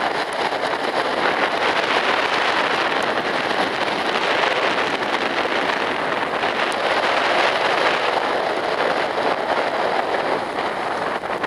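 Strong wind blowing in a steady rush, the winds of an approaching hurricane.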